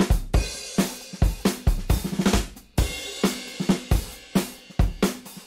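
Background music: a drum-heavy track with a steady beat of kick, snare and cymbals.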